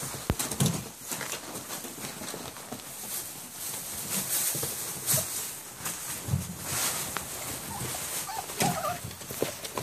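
Five-week-old bully puppies scrambling through shredded paper in a plastic kiddie pool: steady crinkling and rustling of paper with light scratching and tapping of paws, and a brief high puppy squeak near the end.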